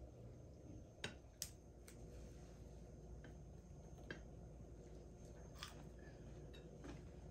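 Near silence over a low steady hum, broken by a few faint clicks and taps of someone eating at a table: fingers on food and a spoon against a dish, with two sharper clicks about a second in.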